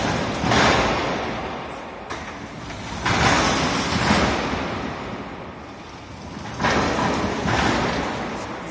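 Wheels of a meniscus roller coaster car rolling along its curved steel track. The rolling noise swells and fades three times as the car swings back and forth.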